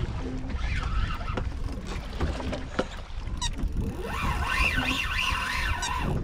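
Wind buffeting the microphone on an open boat. From about four seconds in a high-pitched whine wavers rapidly up and down for about two seconds.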